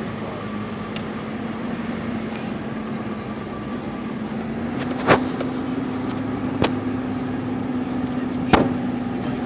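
Steady motor vehicle running with a low, even hum, broken by three sharp clicks in the second half.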